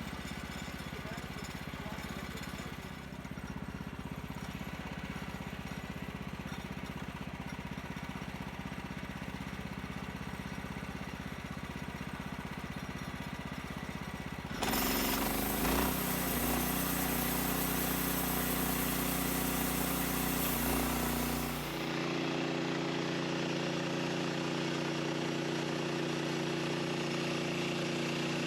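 Sawmill's engine running steadily. About halfway through the sound jumps louder and a hiss joins it for several seconds, then it settles into a different steady engine pitch.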